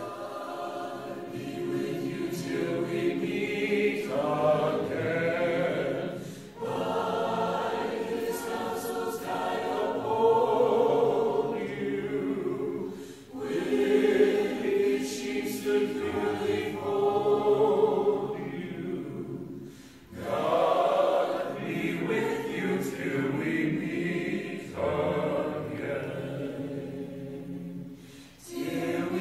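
A choir singing in long phrases, each broken by a short pause about every six or seven seconds; it starts abruptly out of near silence.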